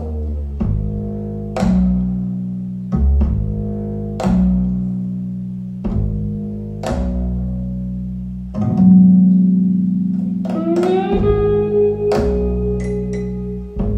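Instrumental music: plucked bass and guitar notes over a low held accompaniment, with a sustained note that slides up in pitch about ten and a half seconds in.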